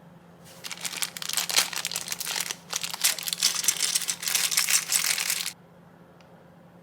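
Crinkly packaging being handled and crumpled during an unboxing: a dense, loud crackling rustle for about five seconds that stops suddenly.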